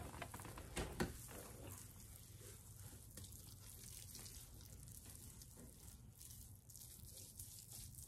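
Faint wet squishing and crackling of fingers working a paste of aloe vera and avocado through hair, with a couple of small ticks about a second in.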